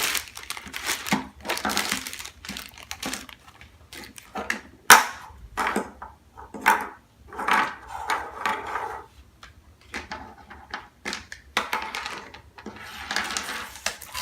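Hands handling toy packaging and Play-Doh cans: irregular clicks and knocks of hard plastic pieces with bursts of rustling plastic wrapping.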